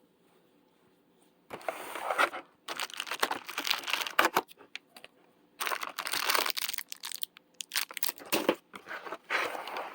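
Packaging from a fidget-toy advent calendar being handled, crinkling and rustling. After a quiet start it comes in three stretches of a few seconds each.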